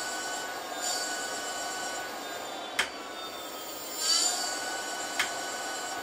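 An e-bike's 48-volt rear hub motor spins the lifted rear wheel under pedal assist, giving a steady electric whine made of several tones. The whine rises in pitch about four seconds in, and two sharp clicks come near three and five seconds.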